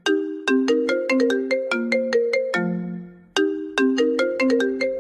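A phone ringtone melody of quick, sharply struck notes that ring briefly and die away. The short phrase starts over about three and a half seconds in.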